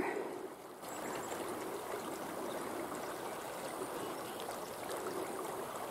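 Paint River flowing: a steady rush of moving water that settles in about a second in.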